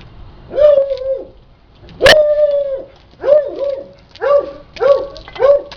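Dog barking repeatedly, about eight short, fairly high-pitched barks, the loudest about two seconds in.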